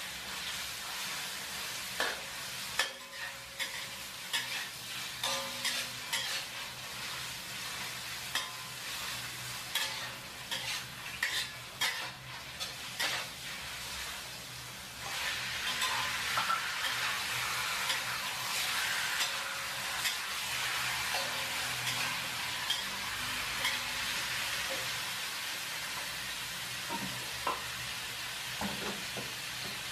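Meat frying in a pan, sizzling, with a utensil stirring and clicking against the pan. About halfway through the sizzling steps up and becomes louder and denser.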